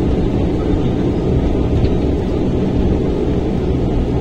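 Steady drone of a turboprop airliner's engine and propeller heard from inside the passenger cabin, with low rumble, as the plane rolls along the runway after touchdown.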